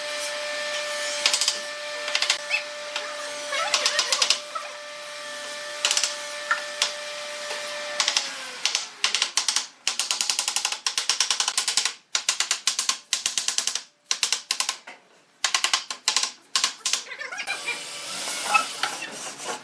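A small motor runs with a steady whine that slides down and stops about eight seconds in, as if spinning down. Then come rapid runs of sharp clicking and tapping, broken by short pauses.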